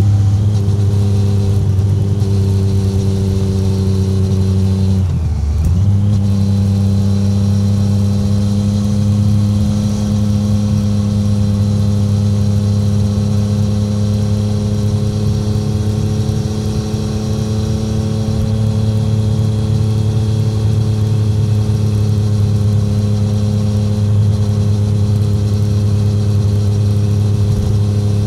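Exhaust note of a 2017 Triumph Street Triple 765R's inline three-cylinder engine through an SC Project SC1-R titanium exhaust, with no wind noise, cruising under steady light throttle. The note breaks and dips briefly about five seconds in, then runs steadily again, rising slightly in pitch.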